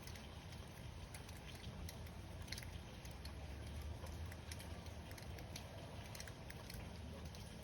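Light rain pattering in scattered drops over a faint low rumble that swells twice, around the middle and near the end.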